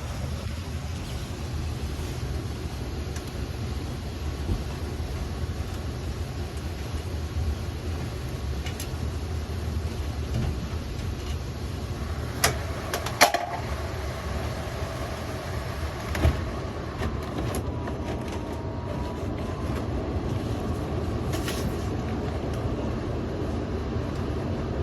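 Furnace blower running with a steady low rumble, its filter overused and clogged with construction dust. A few sharp clicks and knocks, such as a metal panel being handled, stand out about halfway through.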